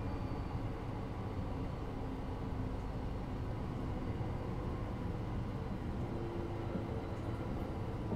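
Class 333 electric multiple unit running between stations, heard from inside the car above the bogie and traction motors: a steady rumble of wheels on track with faint, steady traction-motor tones, part of it picked up through a contact microphone.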